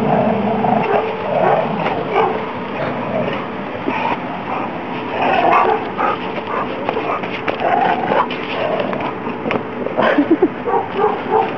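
A dog barking and yipping in short, repeated bursts as it plays at an old car tyre.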